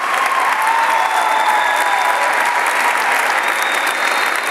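A small group clapping, steady applause, with a thin held high note sliding slightly down above it for the first couple of seconds.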